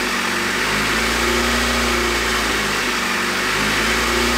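Honda Civic's four-cylinder engine idling and surging, its revs rising and falling on their own, peaking about a second and a half in and again near the end. The idle is hunting, which the owner believes came from not bleeding enough air out of the cooling system.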